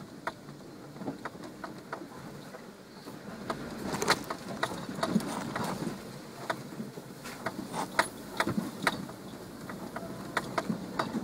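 Jeep heard from inside while crawling over a rough forest trail: irregular knocks, clunks and rattles from the body and suspension over a low rumble, busier and louder from about four seconds in.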